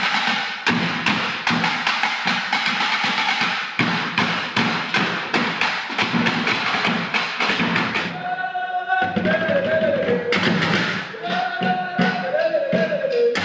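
Sticks drumming fast, interlocking rhythms on plastic jerrycans and metal tins used as improvised drums. About eight seconds in, the drumming drops out for a moment and a high, wavering melodic line comes in, then carries on over the returning drums.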